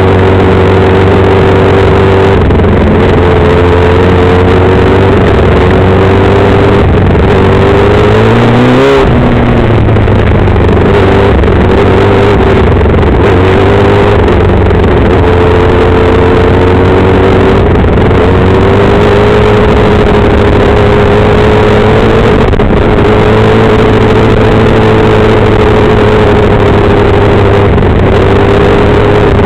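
Compact speedcar's engine running hard at racing speed, heard loud from the cockpit, with a haze of tyre and dirt noise. Its pitch drifts up and down a little, and about nine seconds in it drops sharply and climbs straight back.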